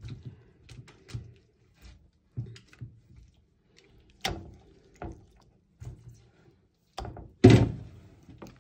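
Scattered soft knocks and thuds of kitchen handling, with a sharper knock about four seconds in and a louder thump about a second before the end.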